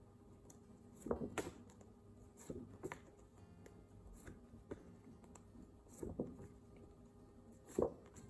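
A woman's voice making short, separate letter sounds of a phonics drill, each sound repeated in quick clusters, with the soft handling of card flashcards between them.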